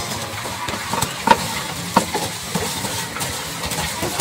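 Dry grass and twigs rustling and crackling as a litter of puppies squirms about in them, with a few brief sharp sounds in between.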